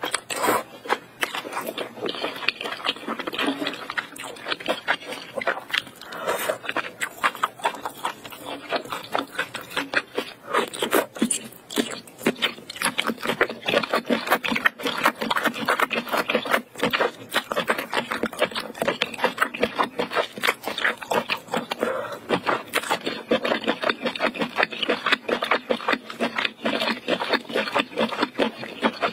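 Close-miked chewing and slurping of sauce-covered octopus: a dense run of quick wet clicks and smacks.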